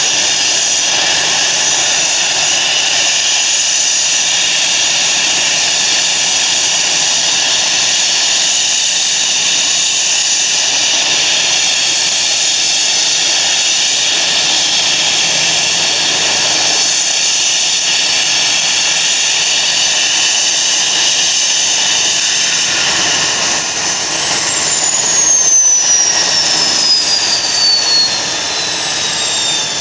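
Eurocopter EC 135 twin-turbine helicopter running on the pad with its rotor turning: a steady turbine whine with rotor noise. Near the end, two high tones start falling steadily in pitch, as the turbines wind down at shutdown.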